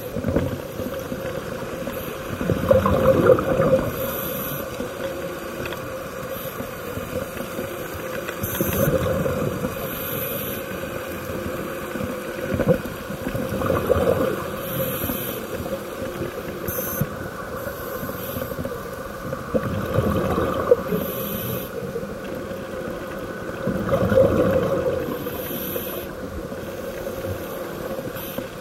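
Scuba diver breathing through a regulator underwater: a hissing inhale, then a rush of bubbling exhaust, repeating about every five to six seconds over a steady hum.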